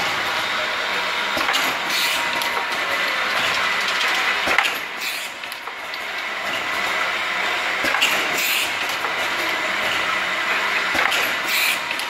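An automatic vial filling, capping and labelling line running, making a steady mechanical clatter of conveyors and glass vials with many small clicks. Several short hisses are heard, and there is a louder knock about four and a half seconds in.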